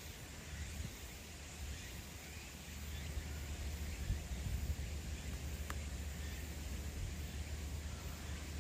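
Outdoor pond-side ambience: a low, uneven rumble of wind on the microphone that grows a little louder about three seconds in. There is faint background hiss and one faint short chirp-like tick near the middle.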